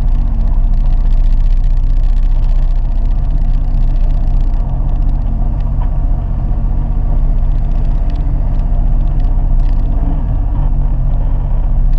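Sea-Doo GTI 130 personal watercraft's three-cylinder four-stroke Rotax engine running steadily at low speed, a constant low engine hum with water noise over it.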